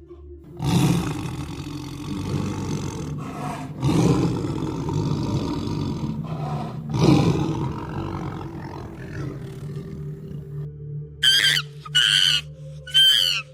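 A big cat roaring and growling: three long, rough roars in a run, followed near the end by three short, high-pitched calls.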